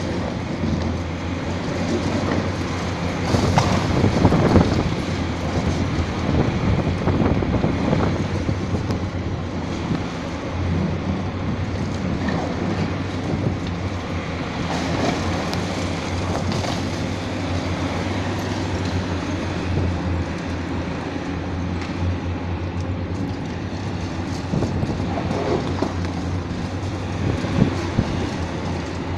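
Hitachi ZAXIS 870 high-reach demolition excavator's diesel engine running steadily under load as its attachment tears into a concrete tower block, with crunching concrete and clattering falling debris. The breaking is loudest about four seconds in and again around the middle.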